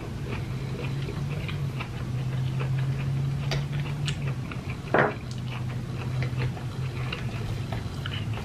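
Close-up mouth sounds of eating jackfruit: irregular small wet clicks and smacks, with one louder knock about five seconds in, over a steady low hum.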